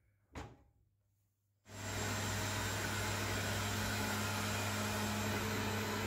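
A short knock as a Beko oven door is pushed shut, then from about two seconds in a robot vacuum cleaner running with a steady whirring hum.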